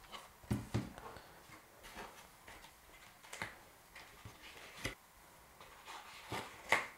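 About eight light knocks and taps, spread apart, as small plastic eufyCam 2C Pro camera units and their HomeBase are lifted out of a cardboard box insert and set down on a desk.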